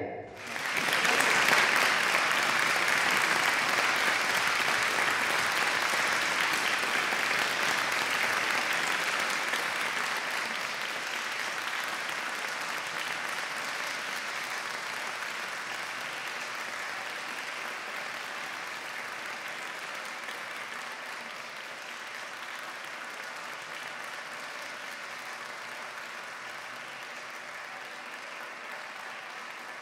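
Audience applause, dense clapping that comes in abruptly at the start, then slowly dies away.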